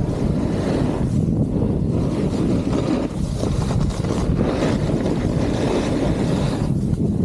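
Wind noise on the microphone of a snowboarder riding a groomed piste, a steady low rumble, over the hiss of the snowboard's edge scraping the snow, which swells and fades with the turns.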